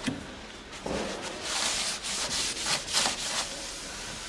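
Paper towel rubbed back and forth along a ski base in a series of scratchy strokes, wiping off wax remover and loosened old wax.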